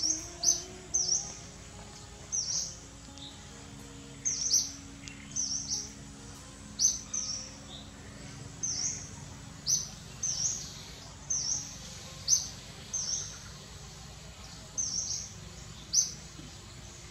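A bird calling repeatedly: short, high chirps that drop in pitch, often in quick pairs, about one to two a second.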